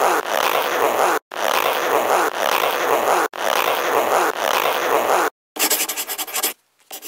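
Harsh, scratchy noise effect in three blocks of about two seconds each, each cut off abruptly. Near the end it gives way to a fast, even rattling buzz.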